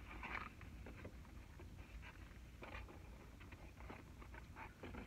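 Faint eating sounds: scattered small clicks and rustles of chewing and handling food, over a low steady hum.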